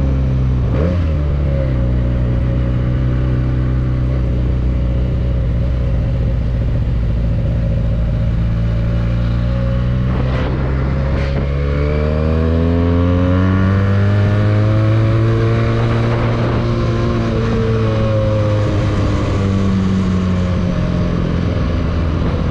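Benelli 302S 300 cc parallel-twin engine with its stock exhaust, heard from the bike while riding. It cruises steadily after a brief blip of revs about a second in. About halfway through the pitch rises as it accelerates, then drops back and settles lower near the end.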